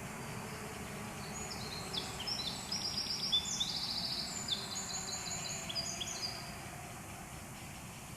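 A small songbird singing a rapid, varied song of quick repeated high notes for about five seconds, over a steady low rumble of machinery.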